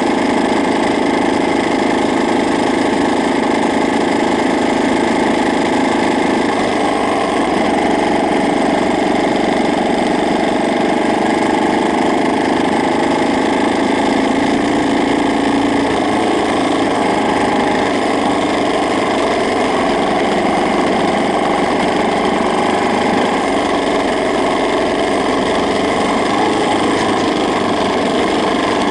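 Honda Ape's single-cylinder four-stroke engine running steadily, its note shifting slightly twice, with the loud abnormal noise (異音) the owner is documenting.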